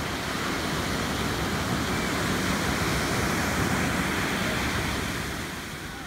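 Ocean surf washing onto the beach: a steady rush of breaking waves that swells toward the middle and eases off near the end.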